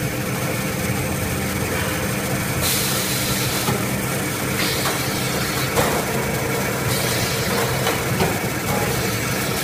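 Band-saw toilet paper roll cutting machine running: a steady machine hum with a hiss that swells for about a second, twice, and a few short clicks.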